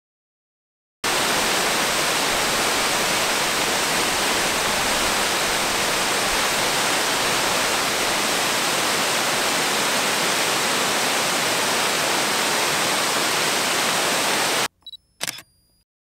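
Steady rushing of a large waterfall up close, starting suddenly about a second in and cutting off abruptly near the end, followed by a couple of short clicks.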